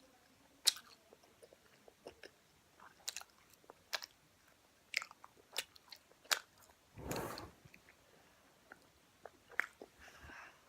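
Close-up mouth sounds of chewing Fini padel balls, soft gummy sweets with a goo filling: sharp wet clicks and smacks at intervals of a second or so, with a louder half-second rush of noise about seven seconds in.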